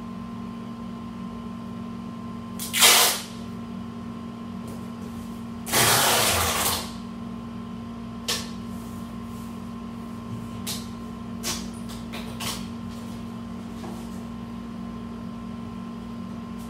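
Clear packing tape being pulled off its roll to seal a cardboard box: a short rip about three seconds in and a longer one around six seconds, followed by several light taps and clicks as the tape and flaps are handled, over a steady low hum.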